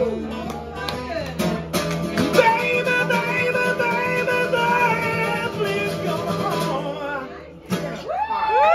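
Man singing over a strummed acoustic guitar, holding one long note from about two seconds in. The song closes with a final strum near the end.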